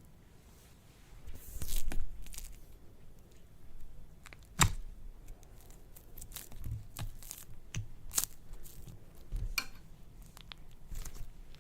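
Slime being worked by hand, giving irregular crackles, pops and crunches, with a louder crinkling burst about two seconds in and one sharp snap a little later.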